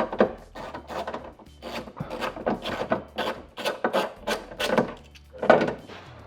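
Ratchet wrench with an 8 mm triple-square bit backing out a trunk latch bolt: a run of short rasping ratchet strokes, about two or three a second.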